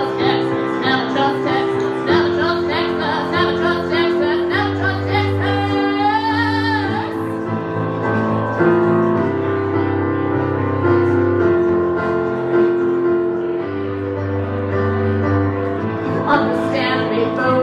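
Live solo performance: a woman singing over sustained chords on an electronic keyboard. About six seconds in she holds one long wavering note.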